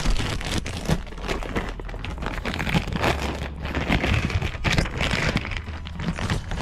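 Irregular crinkling and crackling handling noise with many short clicks, as the parts are moved about and handled.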